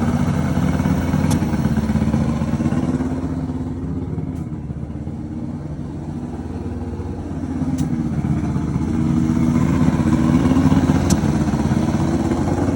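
150 hp Johnson outboard motor running steadily, its sound dipping about a third of the way in and swelling again near the end. It is running so its charging output can be checked, with a cheap diode wired in place of the failed rectifier.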